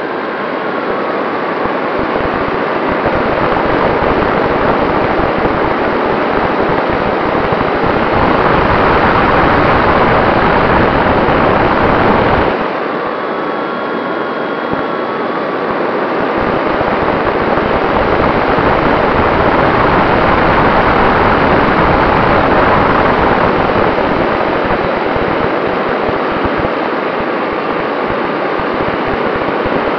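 Airflow rushing past an onboard camera on the electric E-flite T-28 Trojan RC plane in flight, with the faint whine of its electric motor and propeller gliding up and down in pitch. The rush swells, drops off abruptly about twelve seconds in, then builds again.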